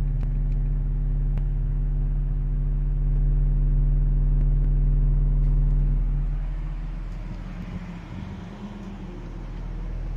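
A 12-inch subwoofer in a homemade 8th-order bandpass enclosure plays a steady 40 Hz sine test tone at full volume, a deep hum with a buzz of overtones above it. It fades somewhat in the second half and builds again near the end. The output at this frequency is extremely underwhelming.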